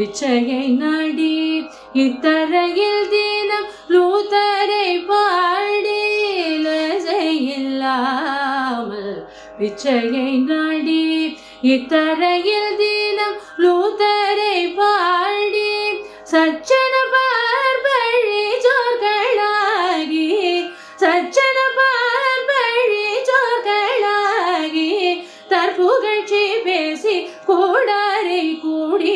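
A woman singing a Carnatic devotional song, her voice sliding and bending through ornamented notes in long phrases with short pauses for breath between them.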